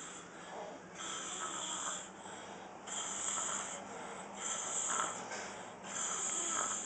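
A man snoring in his sleep, a snore roughly every one and a half seconds with softer breaths between.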